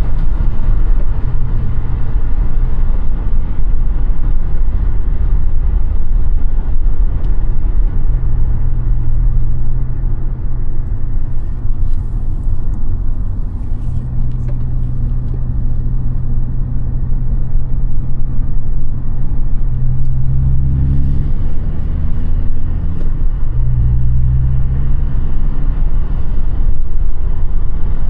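Audi A5 8T engine and tyre noise while driving: a steady low engine hum over road rumble. The engine note shifts in pitch several times, most clearly in the last third.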